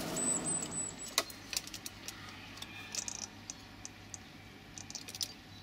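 A crow's beak clicking and tapping against a small glass jar of water on a wooden window sill: a few light, scattered clinks and taps.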